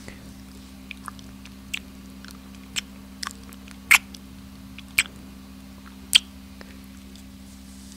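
Close-miked wet mouth sounds: a scattered series of about eight short lip smacks, the three loudest about a second apart in the second half.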